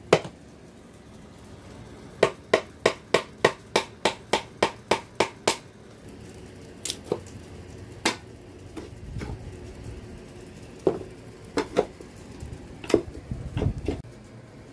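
Hammer striking a chisel against wood: a quick, even run of about a dozen knocks, roughly three a second, then a few scattered knocks and some handling noise. The blows are knocking small glued-on wooden support blocks off a plywood cabinet top.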